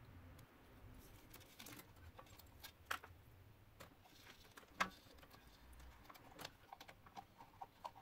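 Faint, scattered small clicks and taps of plastic parts and wires being handled as the housing of a 12 V air compressor is fitted back together.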